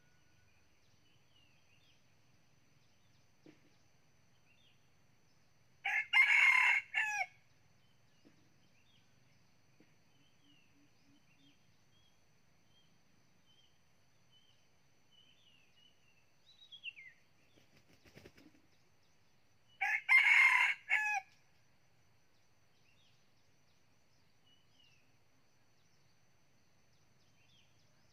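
A nine-month-old red junglefowl rooster crowing twice, about fourteen seconds apart, each crow short and clipped with a few quick breaks, about a second and a half long. Faint chirps of small birds between the crows.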